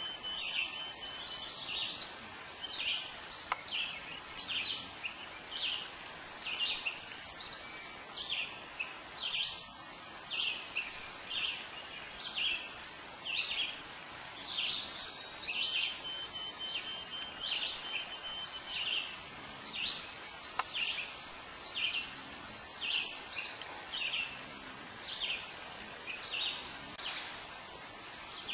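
Songbirds singing: quick, high trills every several seconds, over a scattered run of single high chirps and a thin, steady whistle heard twice.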